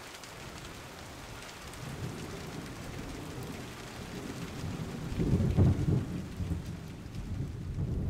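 Steady rain falling, with a low rolling rumble of thunder that builds from about two seconds in, is loudest just past the middle and then eases off.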